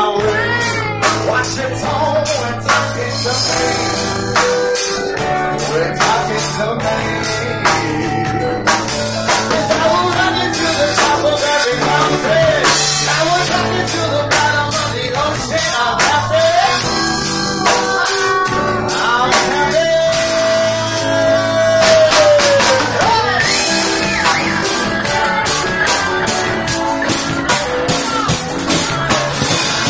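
Live rock band playing: a man singing into a microphone over electric and acoustic guitar and a drum kit. A long held note comes about two-thirds of the way through.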